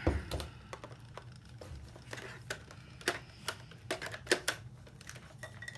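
Irregular sharp clicks and taps of a video camera's plastic housing and parts being handled and pried at during disassembly, with a steady low hum beneath.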